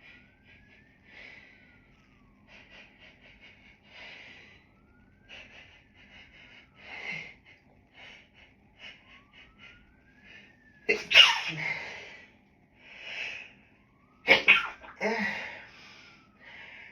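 A woman's dog-allergy sneezing fit: sniffs and short catches of breath, then a loud sneeze about eleven seconds in and two more close together near the end. A siren wails faintly up and down throughout.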